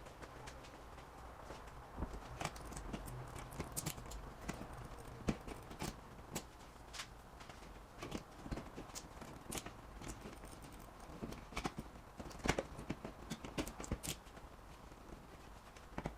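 Irregular clicks, taps and knocks of hand work at an electrical wall box: wires and a smart light switch being pushed into the box and fastened. A faint steady low hum runs underneath.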